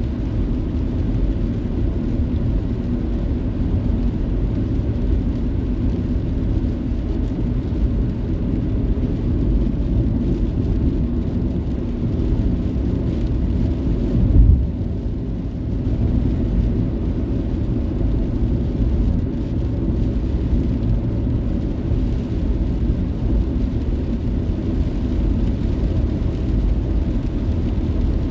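Steady low rumble of a car on the move, engine and tyre noise heard from inside the cabin. One brief louder thump about halfway through.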